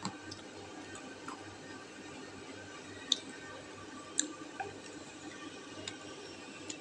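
A person eating noodles close to the microphone: quiet chewing with several short sharp clicks, the loudest about three and four seconds in.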